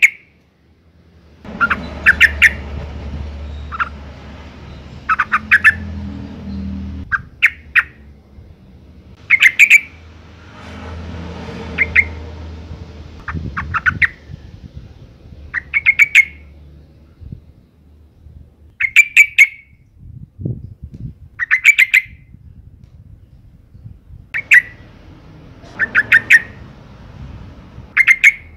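Female sooty-headed bulbul calling in short, quick bursts of a few notes, repeated every two seconds or so; the call of a female in breeding condition that draws males to answer.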